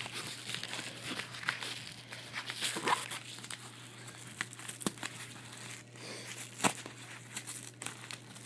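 Packaging being opened by hand: crinkling and rustling of the wrapping with irregular crackles, and one sharp snap about two-thirds of the way through.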